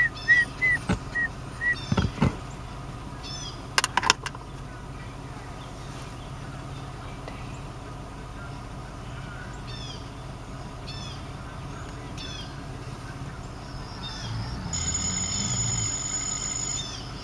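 Steady low hum of a 2005 Mitsubishi Endeavor idling in park, heard inside the cabin. A quick run of five short electronic beeps and a few sharp clicks come in the first four seconds. Short high chirps sound now and then, and a steady electronic tone with several pitches lasts about two seconds near the end.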